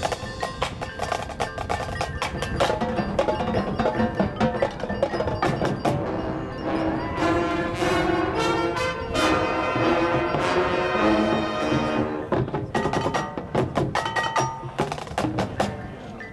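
Marching band playing its field show, with mallet percussion (chimes, bells and marimba-like notes) prominent among sharp percussion strikes; a cluster of hits comes in the last few seconds before the music drops quieter.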